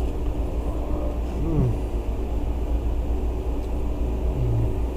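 A steady low vehicle rumble, with faint voices briefly twice.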